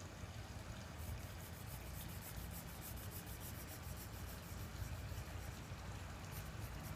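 Mini marker rubbing on coloring-book paper in quick, repeated faint strokes as an area is filled in, starting about a second in, over a low steady hum.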